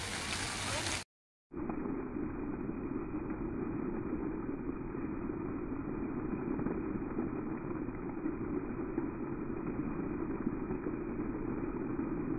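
Steady, muffled rushing of fountain water jets splashing onto wet paving, after the sound cuts out for half a second about a second in.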